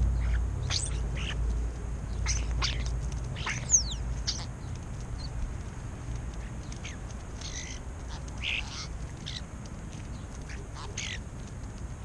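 European starlings calling as they forage: scattered short, harsh calls and whistles, with one sharp falling whistle about four seconds in, over a low steady rumble.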